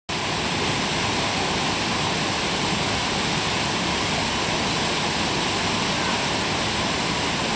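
Senga Falls waterfall: a steady, loud rush of falling water with no break or change.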